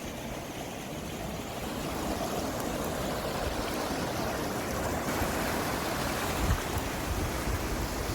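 Rushing water from the waterfall and stream, a steady hiss that grows slightly louder about two seconds in.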